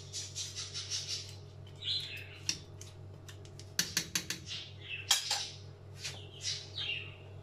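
Metal spoon clinking and scraping against a metal cooking pot while stirring lentils, beans and onions in oil, in irregular taps and scrapes over a steady low hum.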